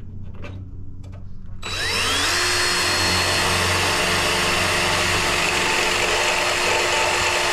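Power drill boring a hole in the truck's grille area. Its motor starts about a second and a half in, whines up in pitch, then runs steadily until it stops at the very end. A few light clicks come before it starts.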